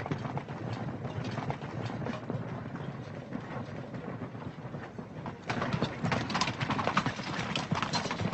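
Horses' hooves clip-clopping, getting louder about five and a half seconds in.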